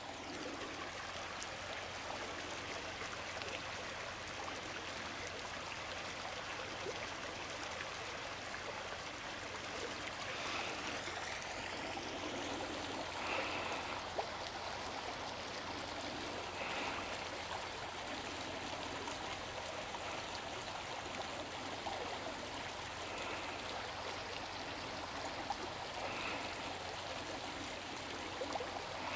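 Mountain river running steadily, an even rush of flowing water. A few short calls rise briefly above it every few seconds.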